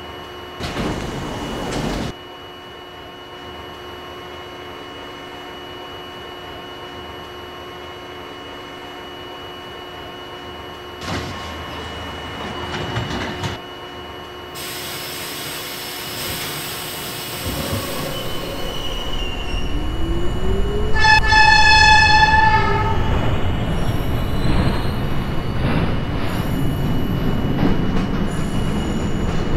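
A New York City subway train comes in. Its rumble builds in the second half, it gives one horn blast lasting about two seconds, and its wheels squeal high as it rolls through near the end.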